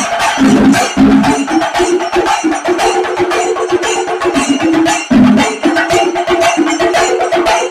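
Chenda drums played together with sticks in a chenda melam ensemble, a dense, fast, continuous rhythm of strikes.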